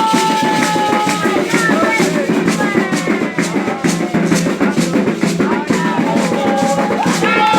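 Afro-Brazilian ritual music: voices singing long held notes over hand drums and shaken rattles keeping a steady beat.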